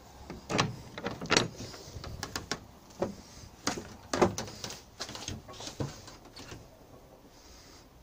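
Wooden aviary door and its latch being handled as someone goes through: a string of irregular knocks and clicks, the loudest about one and a half seconds and four seconds in, dying away after about six seconds.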